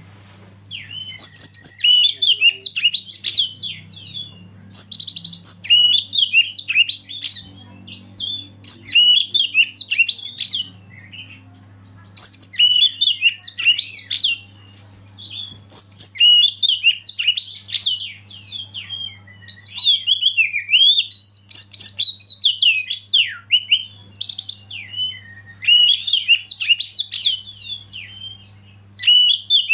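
Oriental magpie-robin (kacer) singing in repeated bursts of varied high whistles and chattering notes, each phrase a couple of seconds long with short pauses between, over a faint steady low hum.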